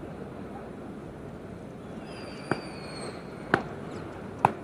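Stadium crowd ambience, a steady hum from the stands, broken by three sharp cracks about a second apart, with a faint high whistle-like tone around the middle.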